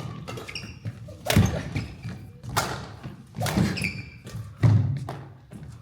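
Badminton singles rally: racket strikes on the shuttlecock about once a second, with heavy footfalls thudding on the court floor and short sneaker squeaks between shots.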